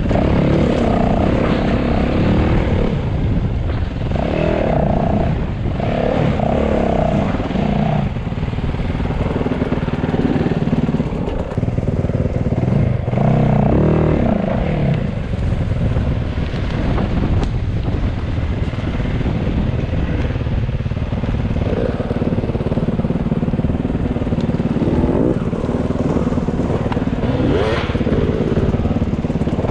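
Enduro motorcycle engine running while riding, its note rising and falling with the throttle.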